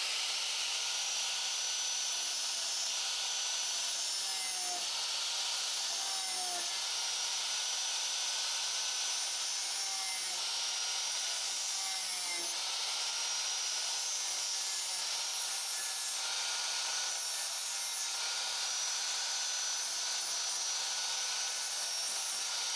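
Angle grinder running steadily with a thin steady whine, its disc cutting shallow tine slots into the steel bowl of a forged rebar spork.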